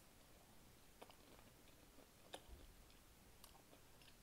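Near silence, with a few faint, short wet clicks from closed-mouth chewing of food.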